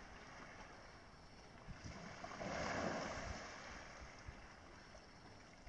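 A whale blowing at the surface: one faint, breathy whoosh that swells and fades over about a second, midway through, over a low steady hiss of water and air.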